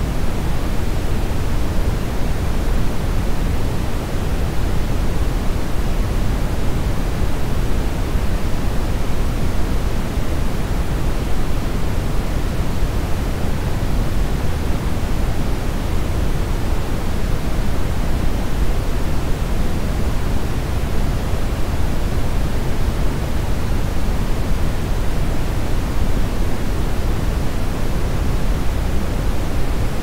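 Steady, unchanging brown noise: an even rush that is deep and full at the bottom, with little treble.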